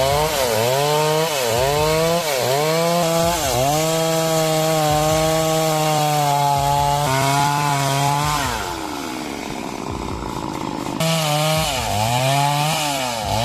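Chainsaw engine running at high revs, its pitch dipping and recovering several times as the chain bites into the wood, then held steady through a long cut. It drops away about two-thirds of the way in, then returns with more dips near the end.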